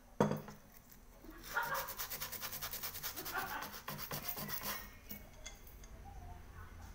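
Hand-sanding the bottom of a small aluminium pot with a scrap of sandpaper: rapid, even back-and-forth scraping strokes, softer towards the end. Just after the start, a single sharp knock with a brief ring.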